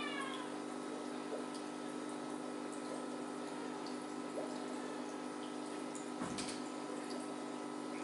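Steady hum of running aquarium equipment over a haze of water noise. A short falling cry sounds right at the start, and a single knock about six seconds in.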